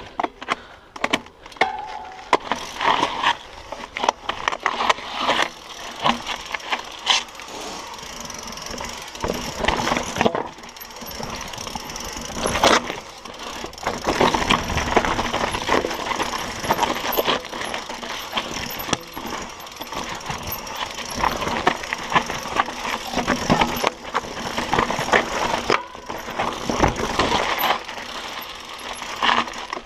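Mountain bike rattling down a rocky trail: tyres crunching over rocks and loose gravel, with a stream of sharp knocks and clatter from the bike itself. It grows louder and busier about twelve seconds in.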